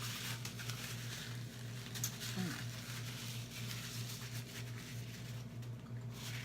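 Someone chewing food with mouth noises and small clicks, over a steady low hum.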